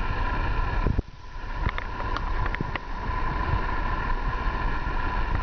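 Wind buffeting the phone microphone, with a steady high hum underneath. The rumble drops away about a second in, then builds again, and a few short, sharp knocks come in quick succession shortly after.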